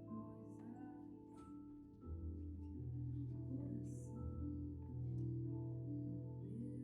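Instrumental music with sustained tones; a deep bass note comes in about two seconds in and the music grows louder.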